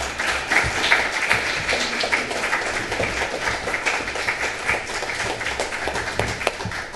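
Audience applauding steadily, many hands clapping at once, in applause for a finished poetry reading.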